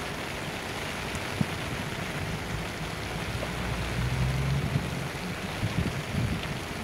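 Steady hiss of rain falling. A low machine hum rises in the middle, and there are a few dull knocks.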